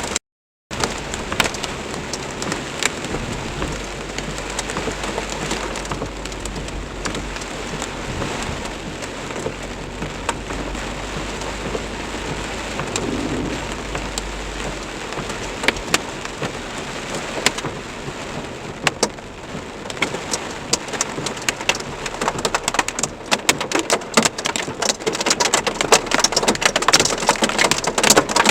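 Heavy rain with hail pelting down, a dense hiss full of sharp individual hits, with a low rumble of thunder through the first half. The sound drops out for a moment just after the start, and the hits grow denser and louder over the last several seconds.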